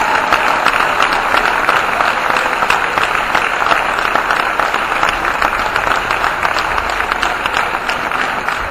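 Audience applauding: dense, steady clapping of many hands that eases slightly near the end.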